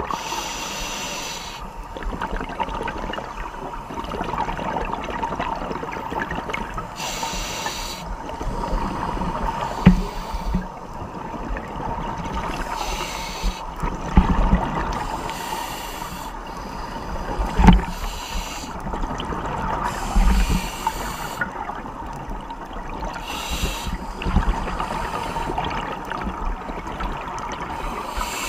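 Scuba regulator breathing heard underwater: short hissing breaths and bubble bursts every few seconds over a steady hum, with a few dull knocks.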